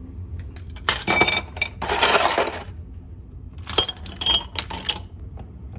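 Glassware clinking: sharp knocks with a ringing note about a second in and several more around four seconds in, with a short noisy rush in between.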